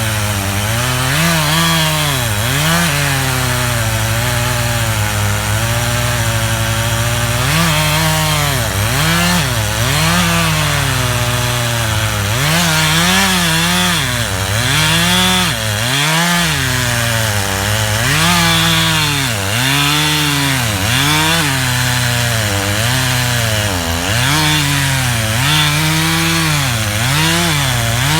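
Stihl MS311 two-stroke chainsaw cutting into a hickory trunk at full throttle, its engine pitch dipping and recovering every second or two as the chain loads up in the wood.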